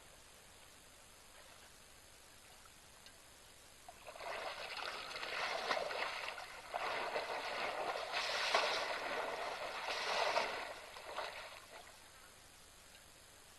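An African bush elephant wallowing in a waterhole, splashing water with its head and body. The splashing starts about four seconds in, goes on for about eight seconds with a short lull partway, and dies away near the end.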